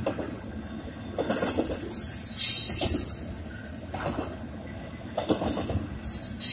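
Double-stack intermodal freight train's well cars rolling past, their steel wheels clattering over the rails. The wheel noise surges louder and hissier from about a second in, and again near the end.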